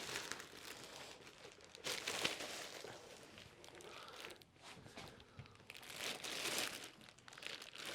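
Faint, irregular crinkling and rustling of plastic wrap and foam packing pieces being pulled off a new keyboard during unboxing.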